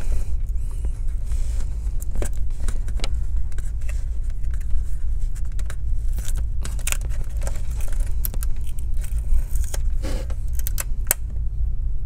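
Fingers handling and tugging a small cable connector loose from the metal LCD frame of an all-in-one computer: scattered small clicks and scrapes over a steady low hum.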